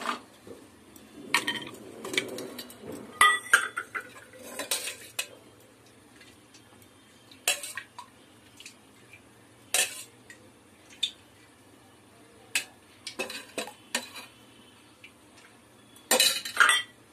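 Stainless-steel kitchen vessels being handled: about a dozen separate metal clinks and knocks as a steel oil can and tins are picked up and set down, with a cluster of louder clatter near the end.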